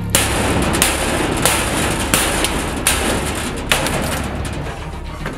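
Repeated hammer blows on sheet steel, six strikes about three-quarters of a second apart with steady noise between them: a worker knocking apart the spot-welded sheet-metal lining of the dome.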